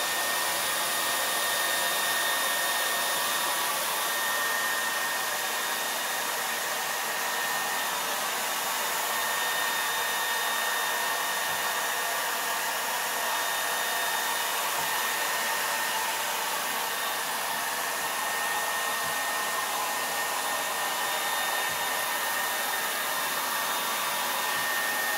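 Handheld hair dryer running steadily: a rush of air with a steady high-pitched motor whine on top.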